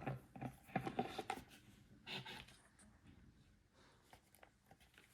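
Faint clicks and rustles of a plastic hummingbird feeder being handled, over the first two and a half seconds, then near silence.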